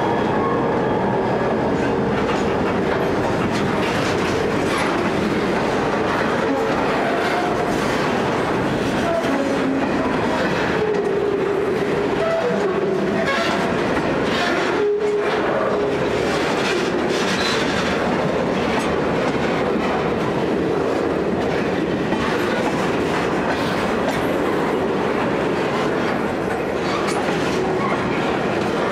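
Grain hopper wagons rolling slowly past on the rails: a steady rumble of wheels with clicking over rail joints and now and then a short squeal. In the first couple of seconds the engine note of the trailing 81 class diesel locomotive fades out as it moves away.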